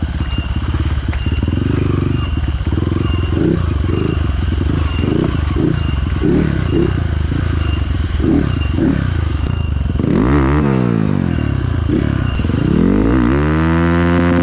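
Trail motorcycle engine revving hard on a rough, muddy track, with repeated short throttle swells for most of the time. About ten seconds in it revs quickly up and back down, and near the end it climbs to a high, held rev.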